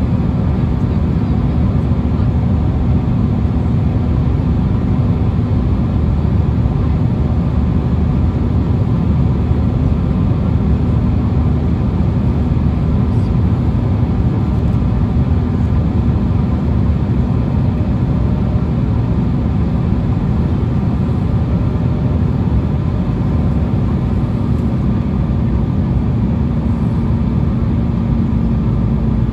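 Steady in-cabin drone of an Embraer E175 in flight on approach: the airliner's GE CF34-8E turbofan engines and the rush of air past the fuselage, an even low roar with one steady hum, unchanging throughout.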